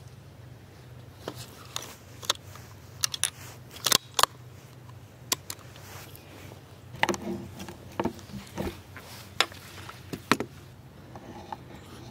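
Irregular sharp clicks and ticks, a dozen or more spread unevenly, with a patch of light rustling about seven to eight seconds in, over a low steady hum.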